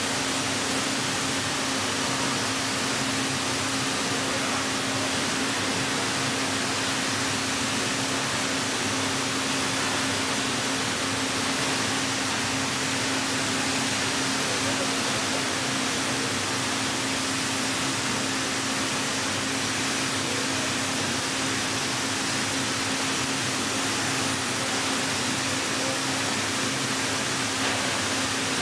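Heller CNC four-roll hydraulic plate bending roll running as it rolls a metal plate: a steady hum under a constant hiss, with no change in level.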